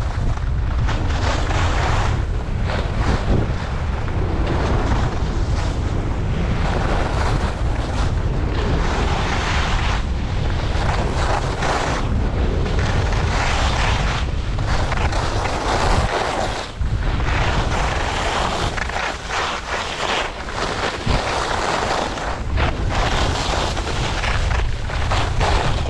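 Wind buffeting the GoPro Hero8's microphone in a steady low rumble while skiing fast, with ski edges hissing and scraping over groomed snow in surges every couple of seconds as each turn is carved. The rush eases for a few seconds past the middle.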